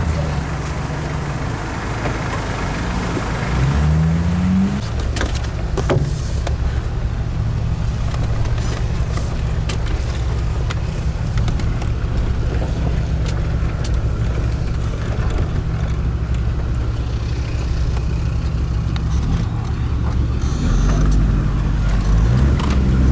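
Off-road 4x4's engine running steadily, revving up briefly about four seconds in, with occasional knocks and clicks as the vehicle works over rough ground.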